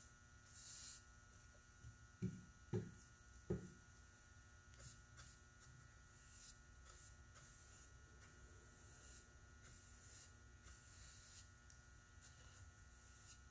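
Quiet room with a low electrical hum, faint swishing of a paintbrush laying polyurethane on a wooden cabinet door, and three soft thumps between about two and three and a half seconds in.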